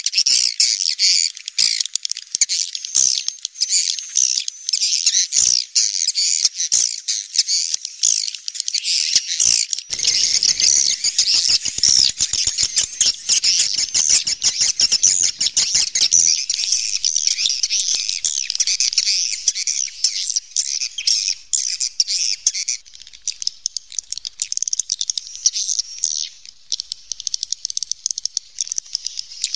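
Swiftlets calling: many birds twittering in a dense, unbroken chorus of high chirps. From about ten to sixteen seconds in, a fast rattling train of clicks runs beneath the chirps.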